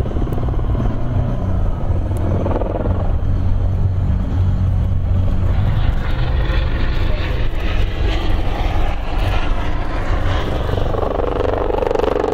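Several Eurocopter EC120 Colibri helicopters flying a formation display overhead: a steady, fast rotor chop with turbine hum, growing fuller and brighter from about halfway through.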